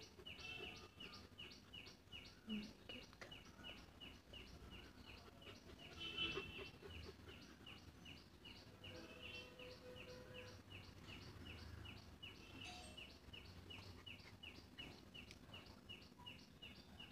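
Faint, steady high-pitched chirping in an even rhythm of about four to five chirps a second, with one louder burst about six seconds in.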